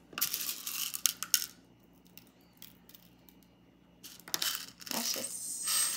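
Small plastic fishbowl beads clicking and rattling as they are scattered from a plastic cup onto slime and the tabletop, in two spells of clatter: one at the start and one from about four seconds in.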